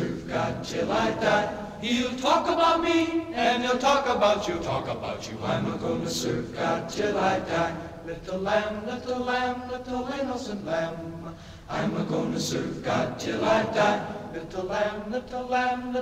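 Choir singing a gospel spiritual, several voices in harmony.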